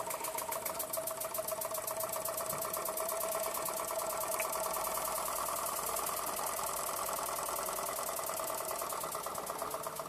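A 40-year-old toy stationary steam engine running, its cylinder chuffing in a fast, even rhythm as it works through the last of its steam.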